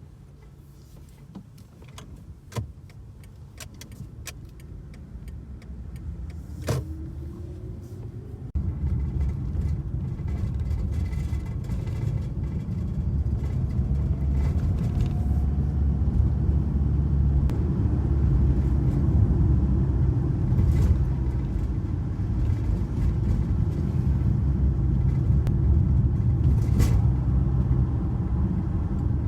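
Car running, heard from inside, with a few sharp clicks early on; about eight seconds in the low rumble steps up louder and stays, with faint rising pitch like an engine gathering speed.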